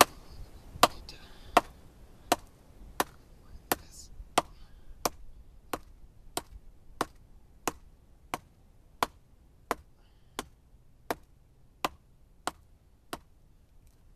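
Schrade SCHF10 survival knife chopping into a wet log: about twenty sharp, evenly spaced chops, roughly three every two seconds, growing a little fainter toward the end.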